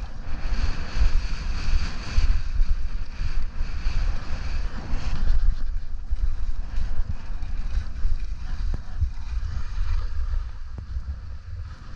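Gusting wind rumbling on the microphone of a skier moving downhill, with the uneven hiss and scrape of skis over hard, chopped-up snow; it eases a little near the end.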